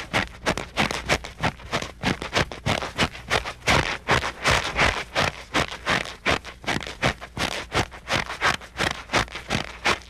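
Footsteps at a quick, even pace, about three to four steps a second, each step a short gritty scuff.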